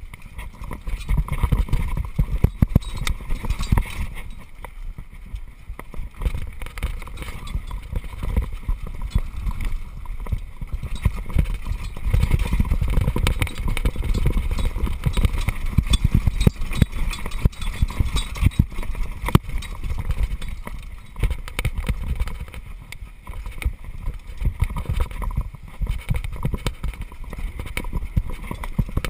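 Downhill mountain bike clattering and rattling over a rough gravel trail at speed: tyres crunching and the frame and chain knocking with every bump, over a heavy rumble of wind on the microphone.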